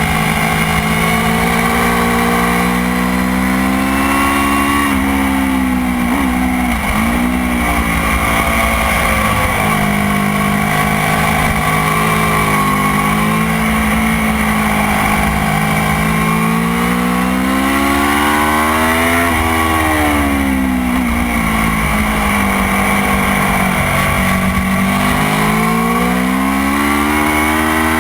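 Motorcycle engine being ridden hard on a race track, its note rising and falling as the revs climb and drop through the gears, with two deep drops in pitch followed by climbs back up. A steady hiss of wind and tyre noise runs under the engine.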